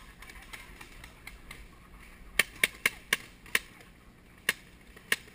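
Paintball markers firing: a run of about seven sharp pops at uneven spacing, starting a little over two seconds in.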